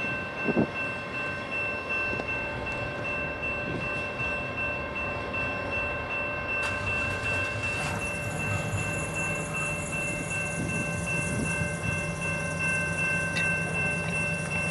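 Loaded ballast hopper cars rolling away over the rails: a steady rumble of wheels on track, with thin steady high-pitched tones running through it. A lower steady hum joins about eight seconds in.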